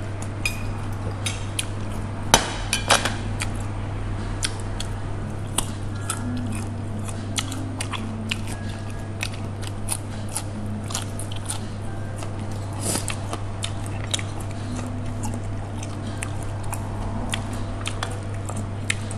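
Eating sounds: chopsticks and cutlery clicking and scraping on ceramic plates, with chewing; two sharper clinks about two and a half seconds in. A steady low hum runs underneath.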